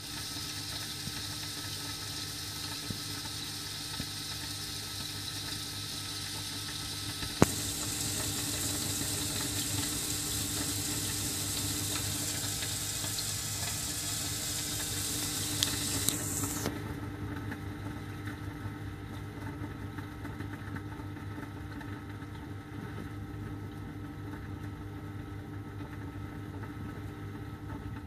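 Aquarium sump with a JNS biopellet reactor running: a steady pump hum under rushing, trickling water. About seven seconds in there is a click, and the water hiss is louder until it drops back a little past the middle.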